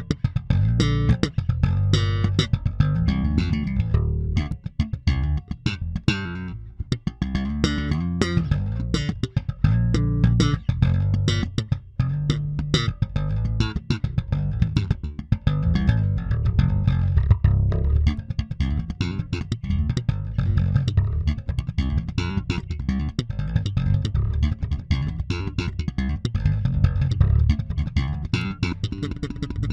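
Electric bass guitar fitted with an active preamp circuit, played solo in a long run of quick, sharply attacked plucked notes with a strong low end.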